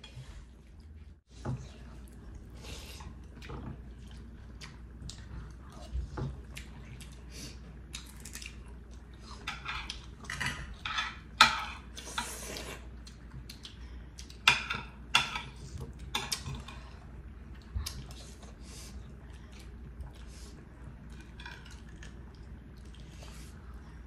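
Eating sounds at a table: wet mouth clicks and chewing, and a utensil clicking against a ceramic plate. The clicks come in scattered clusters and are loudest around the middle.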